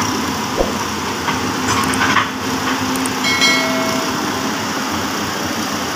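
Hyundai 220LC-9S crawler excavator's diesel engine running steadily close by, a constant low hum under a noisy mechanical drone.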